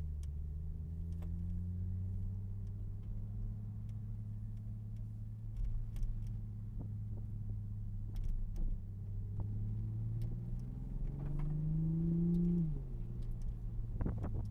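Toyota GR Supra (A90) engine heard from inside the cabin, pulling gently at low revs at low speed, its pitch rising slowly over about twelve seconds. Near the end the revs drop suddenly, followed by a few short knocks.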